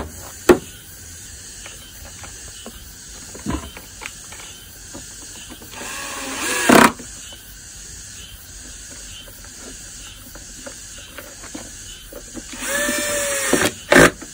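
Cordless drill-driver running in two short bursts, about six seconds in and again near the end, driving screws into the plastic cover of an electric lawn mower. A few sharp knocks of parts being handled come right at the start, over a steady background hiss.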